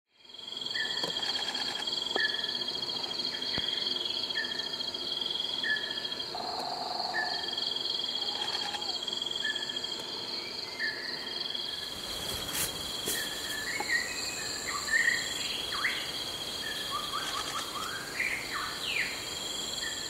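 Tropical forest ambience: insects shrill in steady high-pitched tones, one of them pulsing. A bird repeats a short note about once every second or so, and in the second half several quick rising bird calls come in.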